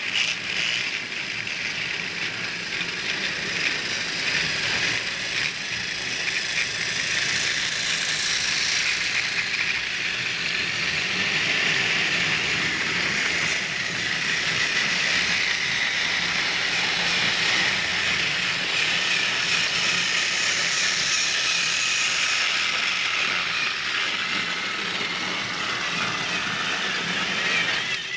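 Motorised plastic toy train running on plastic track: the locomotive's small electric motor whirs steadily and the wheels and coaches rattle along the rails. It grows louder as the train comes close, then eases off near the end.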